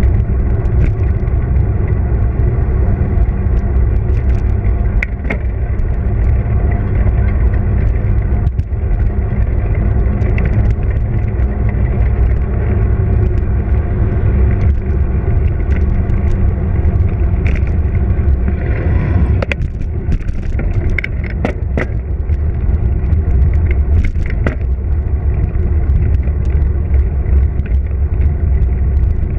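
Wind buffeting the microphone of a moving bicycle, a steady low rumble, with road noise and scattered clicks and rattles from the bike.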